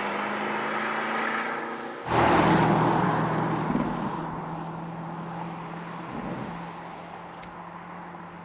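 Porsche Cayenne GTS Coupe's 4.0-litre twin-turbo V8 sounding through its sport exhaust: a steady low note, suddenly much louder about two seconds in, then fading away gradually.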